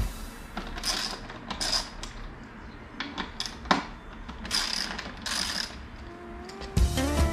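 Hand ratchet clicking in several short bursts as screws are backed out, with a few single sharp clicks between. Background music comes in near the end.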